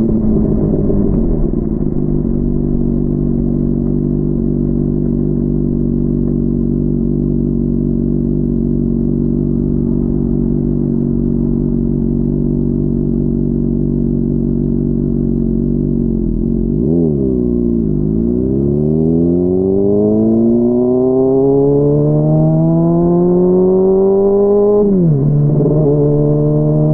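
Honda CBR600RR's inline-four engine, muffled by a mic inside the rider's backpack. It runs at steady revs, then about 17 seconds in the revs flick up and drop. The revs climb steadily for about seven seconds as the bike accelerates, then drop sharply at a gear change near the end and rise again.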